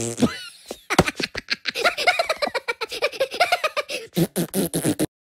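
High-pitched cartoon giggling in the style of the Minions, a rapid run of laughter. A rising squeak from the tail of a fart sound effect comes at the very start, and the giggling cuts off suddenly about five seconds in.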